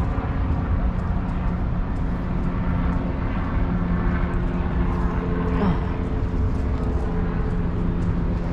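A vehicle's engine running steadily, with a heavy low rumble and a steady hum. A brief falling tone comes about halfway through.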